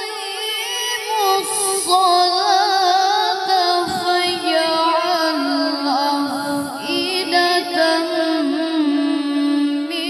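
A boy reciting the Quran in Arabic in the melodic tilawah style, holding long notes with wavering ornamented pitch, amplified through a handheld microphone.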